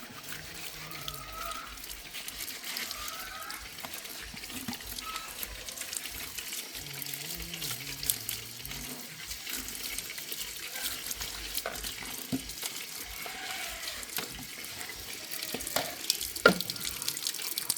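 Water running from a tap while chicken drinkers are being washed by hand, with a sharp knock near the end.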